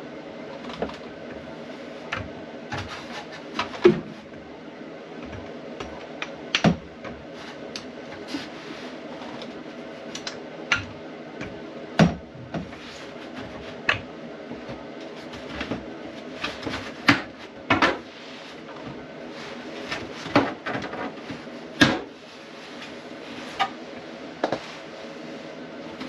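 Scattered sharp clicks and knocks at irregular intervals as a fuel tank and its fittings are handled and fitted to a car's underside, over a steady low hum.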